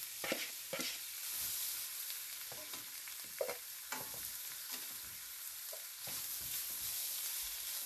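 Spiralized zucchini sizzling in butter in a stainless steel skillet as it warms, with a steady frying hiss. A utensil stirring and tossing it scrapes and clicks against the pan now and then.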